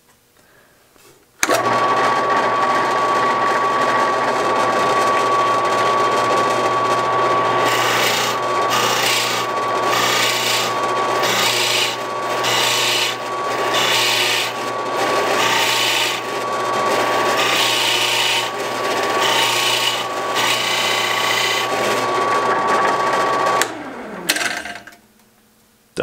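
WEN benchtop drill press starting up about a second and a half in and running steadily at about 900 RPM. Through the middle, a Forstner bit cuts into a walnut block in repeated pulses about once a second. Near the end the motor is switched off and spins down.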